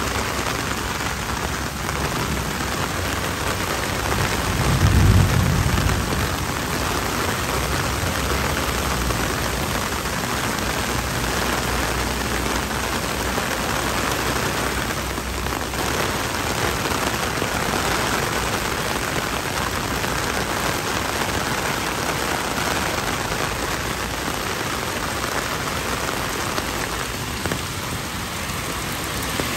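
Torrential rain pouring down on pavement and a city street, a steady hiss. A brief low rumble swells up about five seconds in.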